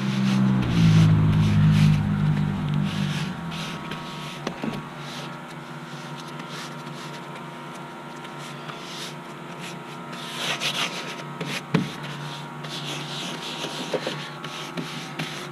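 A low motor hum made of several steady tones, loudest in the first three seconds where its pitch steps down, then running on more quietly. A few short rubbing strokes of paint being worked onto the glued canvas come around ten and thirteen seconds in.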